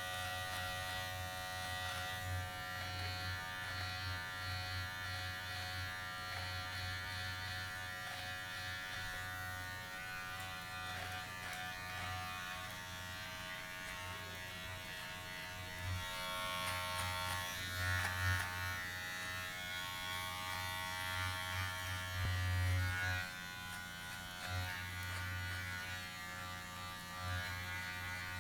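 Electric shaver running with a steady motor hum while shaving a face. From about halfway through, a rasping cutting sound gets louder and comes in uneven surges.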